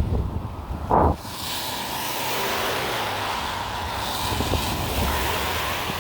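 Traffic passing on a wet road: a steady hiss of tyres and engines, with wind buffeting the microphone. A short loud bump comes about a second in.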